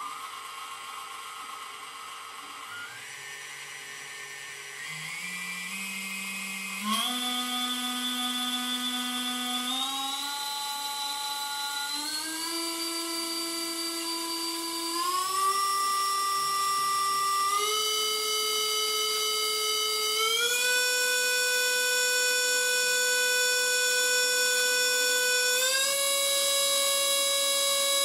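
Quadcopter brushless motor (Lumenier 2206) spinning up in steps on the bench, its whine rising in pitch about nine times as the throttle is raised to full. This is the motor found to cause the most vibration, judged bad enough to be replaced.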